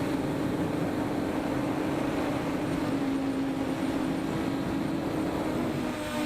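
JJRC X1G quadcopter's motors and propellers whirring at a steady pitch in flight, with air rushing past, heard from the action camera mounted on the drone.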